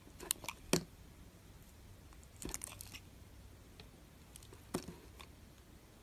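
Thin knife blade shaving slices off a translucent yellow bar of soap, making crisp, crunchy crackles in three short bursts: near the start, about halfway, and near the end.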